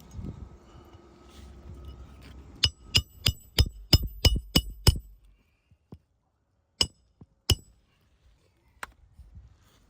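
Hammer tapping a metal tool, with sharp ringing metallic strikes: a quick run of about nine taps, then two more and a single one after a pause.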